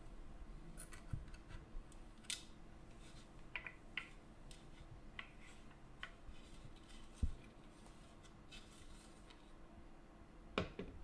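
Light scattered clicks and knocks of a coffee grinder's hopper being handled and wiped with a damp cloth, with a sharper knock about seven seconds in and another near the end, over a faint steady hum.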